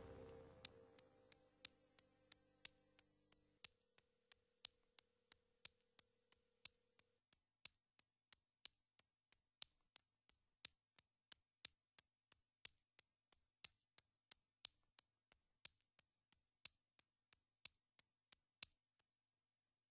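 The soundtrack music fades away over the first few seconds, with one low note lingering a little longer, under a steady sharp ticking like a clock: about two ticks a second, alternating louder and softer. The ticking stops shortly before the end.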